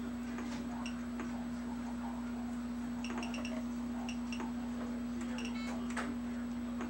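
Steady low electrical hum with faint scattered clicks and a few brief, faint high-pitched beeps.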